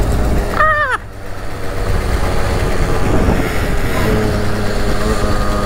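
Small 50cc two-stroke engines of a Derbi motorcycle and a scooter running steadily while riding, with heavy wind rumble on the helmet microphone. A brief wavering high-pitched cry sounds just under a second in.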